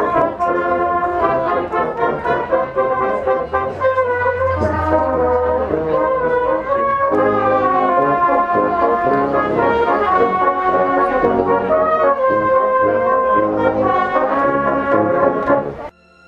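Brass band of cornets and tubas playing a tune in held chords, cutting off abruptly just before the end.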